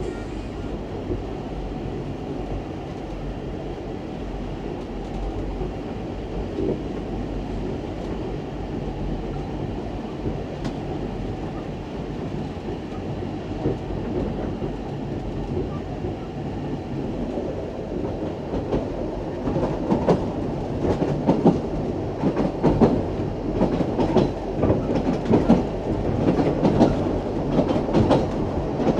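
Steam railway train running along the track: a steady low rumble, with the clatter of wheels over rail joints growing louder and busier about two-thirds of the way in.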